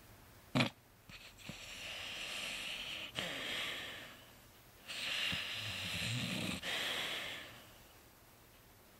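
A dog snoring in its sleep: two long, breathy snores of about two to three seconds each, with a sharp click about half a second in.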